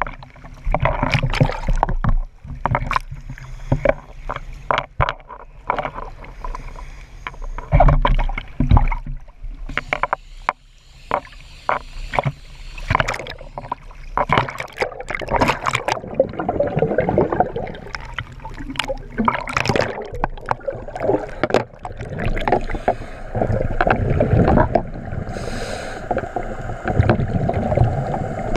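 Choppy sea water slapping and splashing over a camera held at the surface, in irregular bursts, with the sound turning more continuous and gurgling in the second half as the camera dips under.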